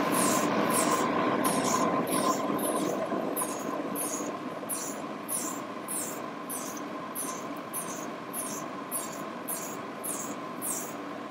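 Vacuum aspirator sucking culture medium out of the wells of a 96-well plate through a glass Pasteur pipette. A steady suction hiss is broken by a short, high slurp about twice a second as the tip empties each well, and it grows gradually quieter.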